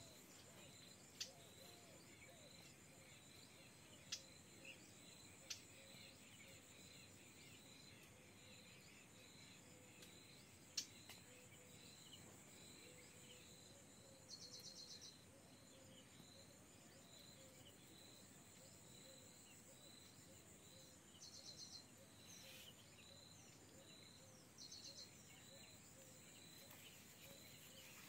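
Faint insect chorus: a steady high drone with three short bursts of rapid, fast-pulsed chirping in the second half, and a few sharp clicks, the loudest about eleven seconds in.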